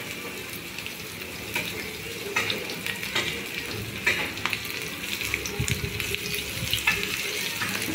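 Flour-coated chicken pieces sizzling as they shallow-fry in oil in a grill pan, with scattered pops and crackles as more pieces are laid in.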